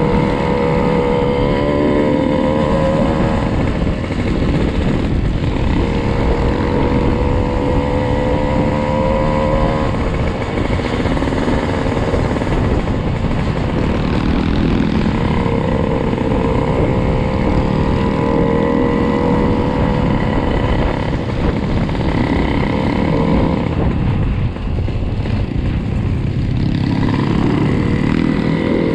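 Trail motorcycle engine running while riding along, its pitch rising and easing with the throttle in long stretches over a steady low rumble.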